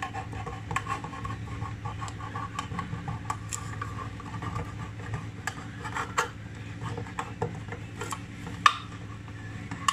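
Kitchen knife point stabbing and prying around the lid of a metal food can to cut it open: irregular metallic clicks and short scrapes, with one louder click a little before the end.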